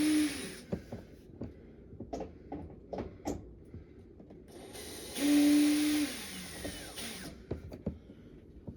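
Cordless power drill running in two bursts while backing out the cabinet screws of a window air conditioner. The first burst stops under a second in and the second runs from about four and a half to seven seconds in, with small clicks and rattles of screws and metal between.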